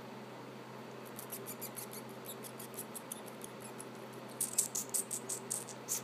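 Rapid series of short, high-pitched squeaks, about five or six a second: faint at first, louder from about four seconds in.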